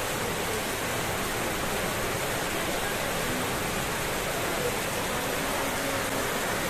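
Heavy rain falling on a corrugated sheet roof and pouring off its edge in streams: a steady, even hiss.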